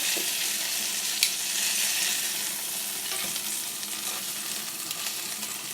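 Marinated chicken pieces frying in butter and olive oil in a pan: a steady sizzle, with a single light click about a second in.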